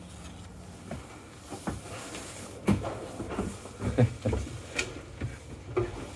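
Scattered knocks and clunks with some rustling, the loudest about two and a half and four seconds in: someone moving about and handling things in a cramped ferry cabin, over a steady low hum.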